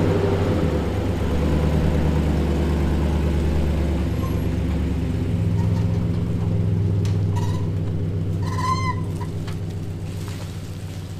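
Nissan Titan pickup's V8 engine running at low speed as it slowly tows a boat trailer, with two brief squeaks in the second half.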